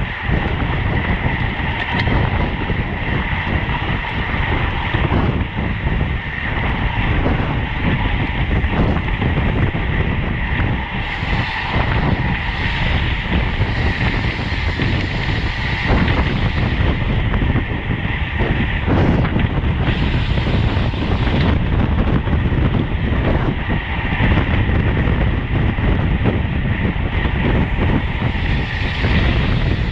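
Steady wind rush and buffeting on the microphone with the rolling noise of a road bike ridden at race speed.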